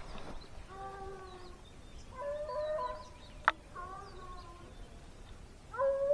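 A pack of hunting hounds baying in full cry on the trail of a white-tailed deer: several dogs' drawn-out calls at different pitches, overlapping in bouts about every second or so. There is one sharp click about three and a half seconds in.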